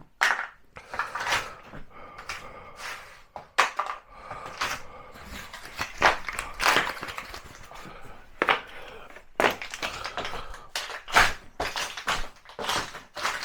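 Cardboard packaging being stamped and crushed flat underfoot with heavy boots: a run of irregular crunches, cracks and crackles.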